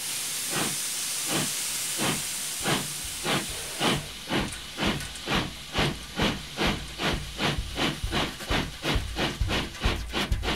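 Steam locomotive pulling away: a steady hiss of steam, then chuffs that start slow and quicken steadily, each with a low thump beneath it.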